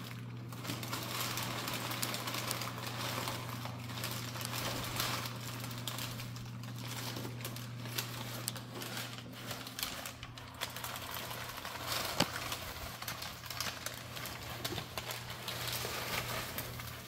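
Argentine black-and-white tegu rummaging in crumpled brown packing paper and against cardboard boxes: the paper rustles and crinkles, with many small clicks and scratches of its claws. One sharper knock comes about twelve seconds in, over a steady low hum.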